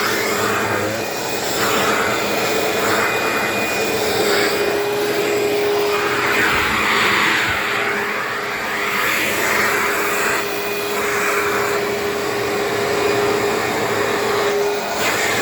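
Vacuum cleaner running steadily, a continuous motor hum with a held tone, its suction noise swelling and fading every second or two as the floor is gone over.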